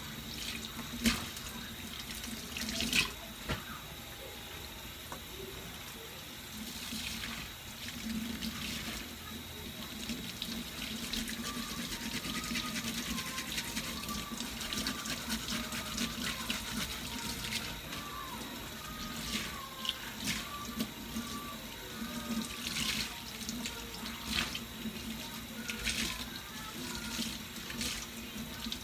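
Kitchen faucet running steadily into a stainless steel sink while a sponge is rinsed and squeezed under the stream, with occasional splashes and clicks.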